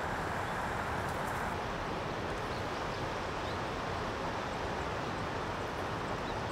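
Steady outdoor background noise: an even rushing hiss with a low rumble beneath, holding the same level throughout.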